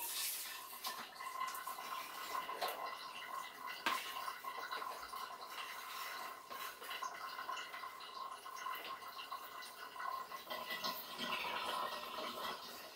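Faint clicks and knocks of plywood clamp blocks and a threaded rod being handled on a tabletop, the sharpest at the start and about four seconds in, over a steady high-pitched hum.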